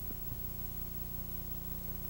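Steady mains-type hum and hiss of a multi-generation VHS copy, with one faint, brief knock just after the start.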